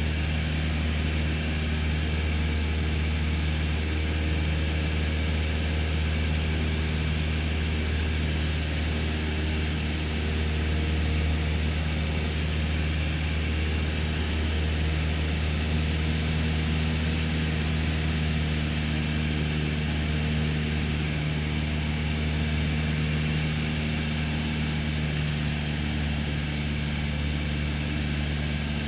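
Piper single-engine light aircraft's piston engine and propeller droning steadily in cruise flight, heard inside the cabin.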